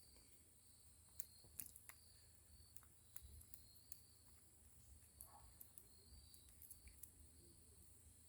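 Near silence broken by faint, scattered small clicks of a screwdriver working a Phillips head screw out of an ATV clutch lever holder's dust cover, with faint insect chirping behind.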